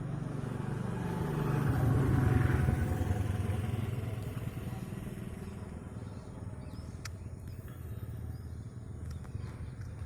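A motor vehicle's engine passing by, getting louder to a peak about two seconds in and then fading away.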